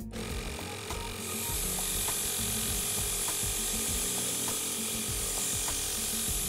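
Cartoon sound effect of compressed air hissing into a sand-filled pressure tank: a steady hiss that grows louder and brighter about a second in.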